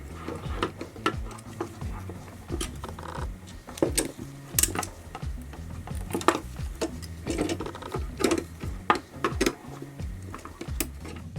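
A small machine running with a buzzing rattle and irregular sharp clicks, over background music with a steady bass line.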